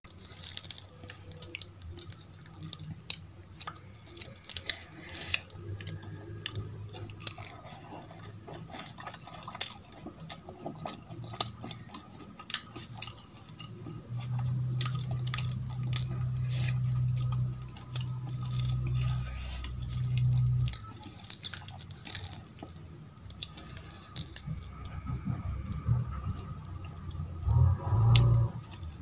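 Close-up eating sounds: the crisp crust of deep-fried aloo kachoris crackling as it is torn by hand, with chewing and wet mouth sounds, a rapid scatter of small clicks. A low hum joins for several seconds in the middle.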